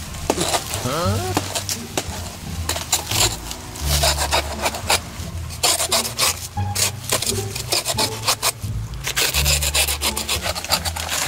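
Sickle blade chopping and scraping into the soft, fibrous trunk of a banana plant: a run of short, uneven hacking and rasping strokes.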